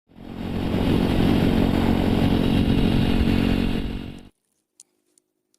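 Motorcycle engine running hard with a steady rumble and exhaust note. It swells in over about half a second, holds, and cuts off abruptly about four seconds in.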